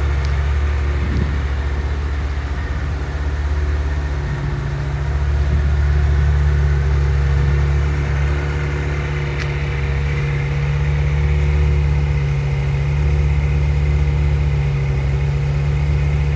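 Ferrari F355 Spider's 3.5-litre V8 idling steadily, a deep even note with only slight swells in level.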